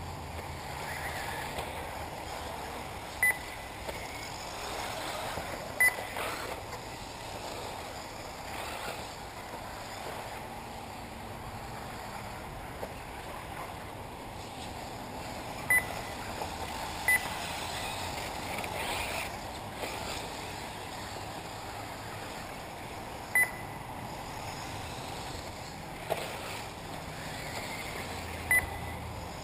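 Electric 1/8-scale RC off-road buggies running on the track, a steady background noise, broken by six short, sharp high beeps at irregular intervals.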